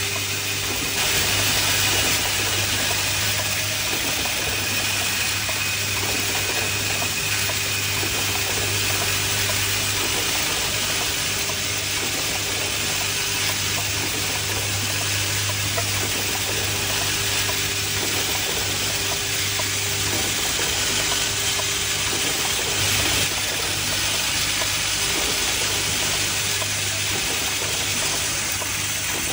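Automatic hinge assembly machine and its vibratory bowl feeders running: a steady low hum under an even hiss of machinery noise.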